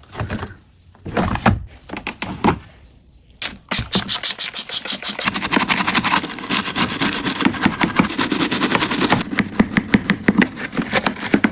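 A few scattered knocks and handling sounds, then fast, even scrubbing strokes, several a second, typical of cleaning a washing machine.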